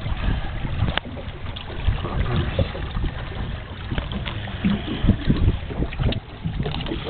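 Wind buffeting the microphone in rough weather: an uneven low rumble with scattered knocks and thumps.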